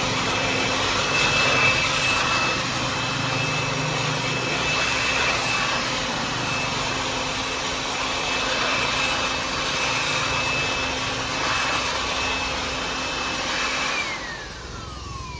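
FEG EG103 600 W electric dust blower running flat out with a steady high whine and a rush of air, blowing dust out of an evaporative air cooler's grille. Near the end the level drops and the whine slides down as the motor winds down.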